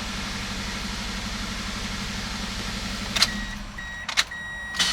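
2003 Toyota Corolla's 1.8-litre four-cylinder engine idling steadily, freshly started after a no-start. Near the end there are two sharp clicks and a high electronic beep sounding in short pulses.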